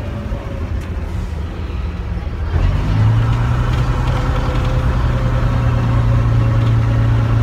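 Bristol RELL6L bus's Gardner six-cylinder diesel heard from inside the saloon: a lower rumble at first, then about two and a half seconds in it gets louder and settles into a strong, steady low drone as the bus pulls away under power.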